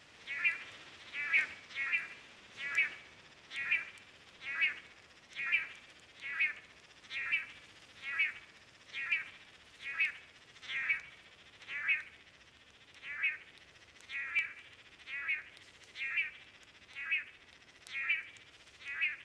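An animal calling over and over, a short rattling call about once a second with the same pitch each time, over a faint steady hiss.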